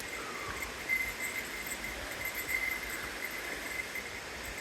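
Footsteps of a hiker in Crocs on a wet, steep forest trail, over a steady outdoor hiss, with a faint high tone pulsing on and off.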